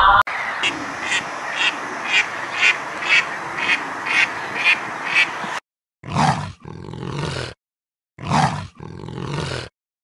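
Animal calls: a short call repeated about twice a second over a hissy background for about five and a half seconds, then two longer calls of about a second and a half each, separated by silence.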